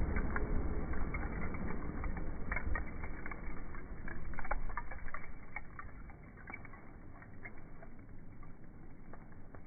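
Small wood fire crackling: irregular sharp pops and snaps over a low rumble that fades away about halfway through.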